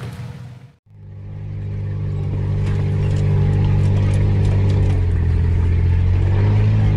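Off-road 4x4 engine running steadily under load as the vehicle drives a rough trail. The sound drops out briefly just under a second in, then the engine fades back in and holds a steady drone.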